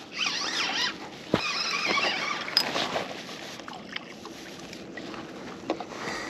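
Fishing reel being cranked to bring in a hooked fish, its gears whirring with a wavering, rising and falling pitch, along with a few sharp knocks.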